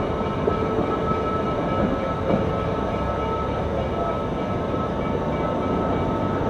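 Baldwin 2-8-0 steam locomotive No. 734 moving slowly tender-first: a steady rumble and hiss from the engine and running gear, with a thin steady high whine and a couple of light knocks.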